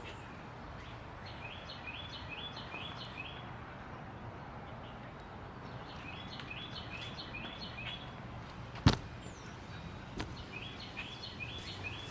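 A songbird singing three runs of quick, repeated chirping notes, with one sharp click about three seconds before the end.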